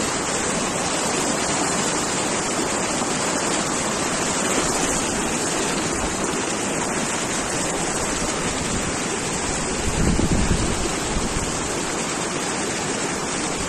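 Shallow mountain stream rushing steadily over rocks. A gust of wind buffets the microphone briefly about ten seconds in.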